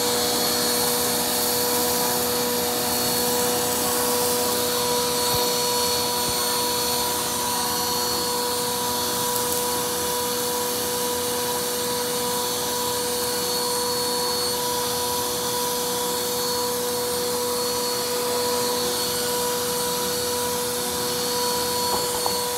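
Bissell PowerForce Compact upright vacuum cleaner running steadily with a constant whine, its hose end sucking dirt and dust off a rug.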